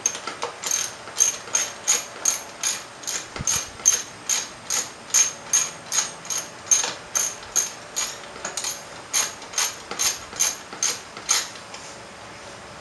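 Hand socket ratchet being worked back and forth on a fastener, each stroke a quick burst of pawl clicks, about two or three strokes a second, stopping near the end.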